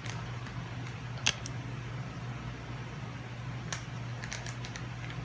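Scissors snipping open a plastic detergent packet: a sharp snip about a second in and a few quick snips and crinkles near the end, over a steady low hum.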